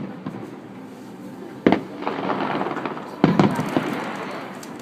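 Fireworks bursting: two sharp bangs about a second and a half apart, each trailing off in a fading crackle.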